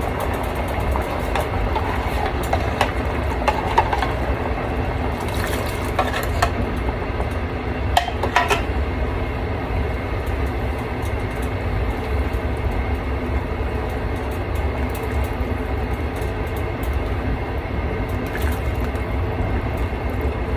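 A stockpot of chicken soup broth simmering on the stove: a steady rumbling, bubbling noise, with a few light clinks about six and eight seconds in.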